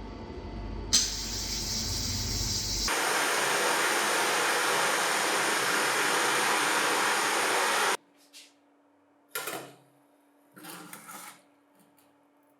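A power tool running with a steady rushing, abrasive noise while the grinder motor's rotor is cleaned. It cuts off abruptly about eight seconds in, followed by a few faint handling knocks.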